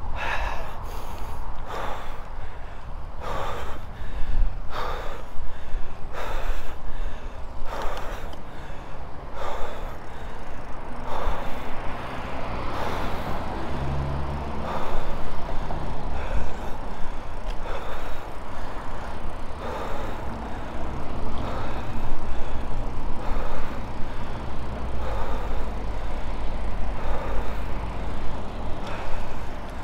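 A cyclist breathing hard while pedalling, a heavy exhale or gasp about once a second, over a steady low rumble of wind and road noise.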